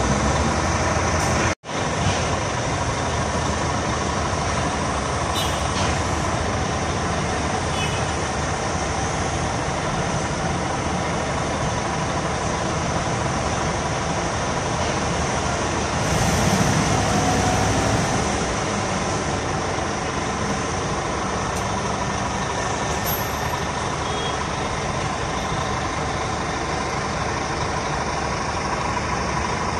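Heavy diesel engine running steadily under a constant hiss. It cuts out for an instant about a second and a half in, and grows a little louder for about two seconds past the middle.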